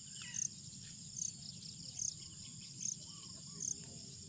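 Insects chirping in a field: a short high chirp repeats a little more than once a second over a steady high insect hum, with a few faint bird calls.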